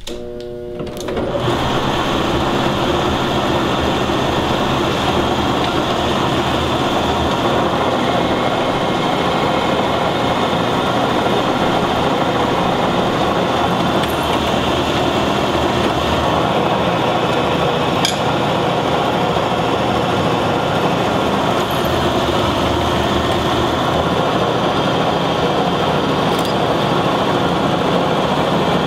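Drill press running steadily as a small bit drills handle screw holes through a steel knife blank clamped in a drilling fixture. The sound builds up over the first second or so and then holds steady, with a few light ticks.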